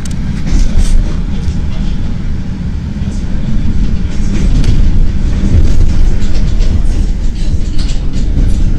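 CTA 5000-series rapid-transit car running, heard from inside: a steady low rumble of wheels on rail with sharp clacks as the wheels cross joints and switches, growing louder about halfway through.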